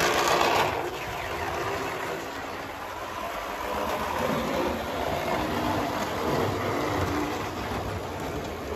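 Triang Hornby Blue Pullman 00 gauge model train running on the track: a steady motor whir with wheel noise, a little louder for the first second. It has just been serviced after a long time in a drawer and is running well, perhaps still needing a run-in.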